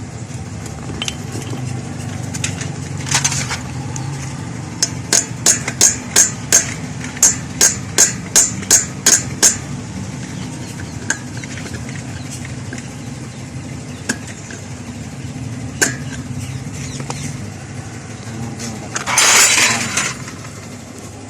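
A hammer striking metal at a car wheel's brake assembly during a brake-shoe job: a quick run of about fourteen sharp ringing blows, roughly three a second, with a few single knocks before and after. Near the end comes a brief rush of noise about a second long, over a steady low hum.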